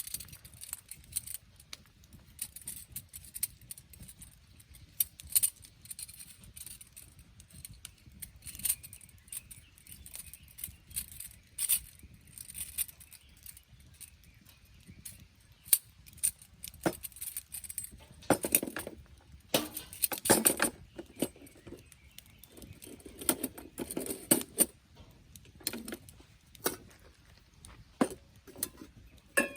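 Irregular clicks, light clatter and rustling of things being handled, with longer scraping or rustling spells about two-thirds of the way in.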